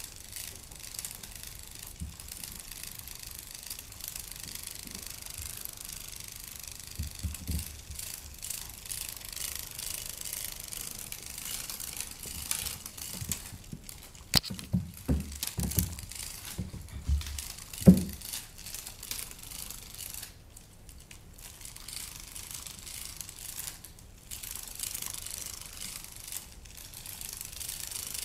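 Battery-powered moving butterfly cat toy fluttering with a steady crinkly rattle. A few dull knocks and bumps come about halfway through, the loudest a single sharp knock about two-thirds of the way in.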